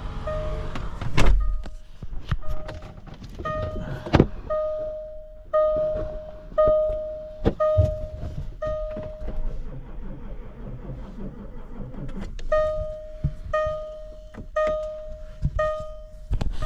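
Electronic warning chime beeping one steady tone about once a second, stopping for a few seconds midway and then resuming. Scattered clicks and knocks sound alongside it, with sharp ones about a second in and about four seconds in.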